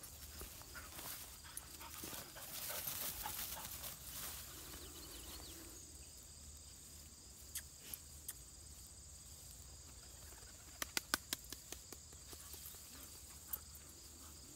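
Small Münsterländer pointer running through long grass: rustling and quick footfalls for the first few seconds, then quieter, with a quick run of sharp clicks about eleven seconds in.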